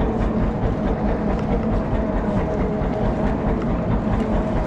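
Boat engine running steadily, a constant low hum with a rushing noise of wind and water over it.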